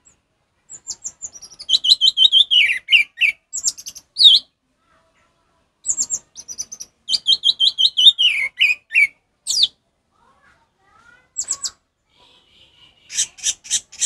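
Caged orange-headed thrush singing in the full, open 'ngeplong' style: two similar phrases of quick repeated notes that slide down in pitch at the end, mixed with high thin notes. A few short sharp notes follow near the end.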